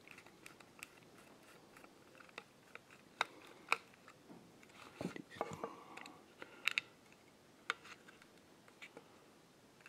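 Faint, scattered clicks and light knocks as a small screwdriver backs out a tiny screw from a Raceceiver handheld race-radio receiver's plastic case, followed by fingers working the plastic case apart.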